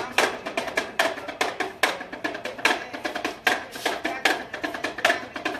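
A monkey handler's small two-headed hand drum (damru) rattled in rapid, uneven sharp strikes, several a second, keeping a beat for the monkey's trick.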